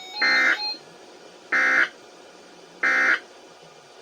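Emergency alert SAME header data bursts, three in a row: short, harsh electronic buzzing bursts of equal length, about 1.3 s apart. These are the digital code that announces an emergency alert broadcast.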